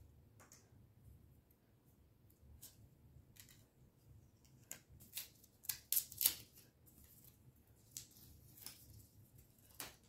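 Protective plastic film being peeled off a new GoPro HERO11 Black's screen and lens: faint, scattered crackles and ticks of the thin film, loudest in a cluster about five to six seconds in.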